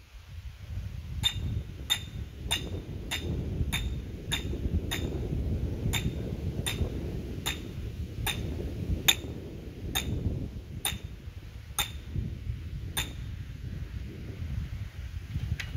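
A ratchet on a casket lowering device being cranked: about seventeen sharp metallic clicks with a slight ring, evenly paced, slowing from under two a second to about one a second, then stopping. A low steady rumble runs underneath.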